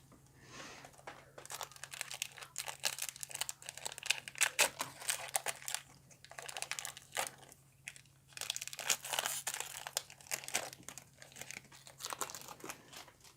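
A Pokémon TCG booster pack's foil wrapper being torn open and crinkled by hand, an irregular crackling with short pauses.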